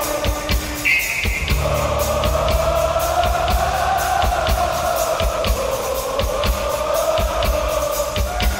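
Rock music with a steady drum beat and a held, slowly wavering lead line.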